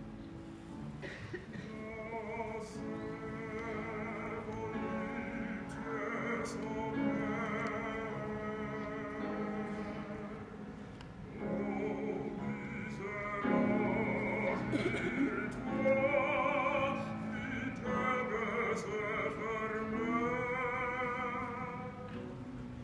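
A choir singing in several voice parts together: sustained notes with vibrato, swelling louder after the middle.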